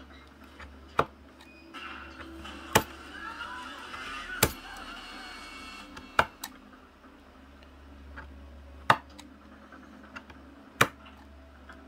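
Six sharp clicks, roughly one every two seconds, as the old rubber drive ring is picked off a friction-drive sewing machine motor pulley with a small hand tool and breaks away in chunks.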